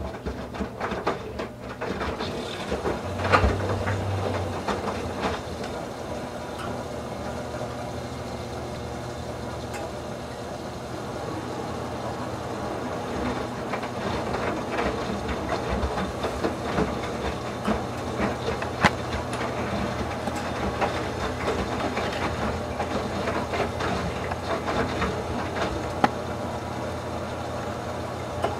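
Whirlpool Duet WFW97HEDC front-loading washer's direct-drive drum tumbling a wet load of towels in the main wash, with water sloshing and spraying into the drum over a steady low motor hum. There are many small clicks and one loud knock about three seconds in.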